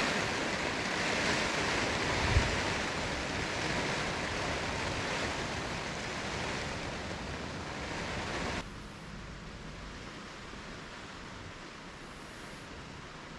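Heavy typhoon rain pouring down in a steady hiss, with a single low thump a couple of seconds in. About two-thirds of the way through the rain sound drops abruptly to a quieter, thinner hiss.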